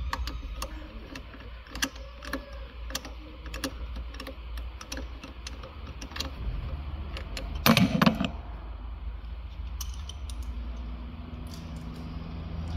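Irregular clicks and light metal clinks of a hand socket tool on the bolts of the Audi Q7's front drive shaft flange as a bolt is backed out and removed, with a louder metal clatter about eight seconds in.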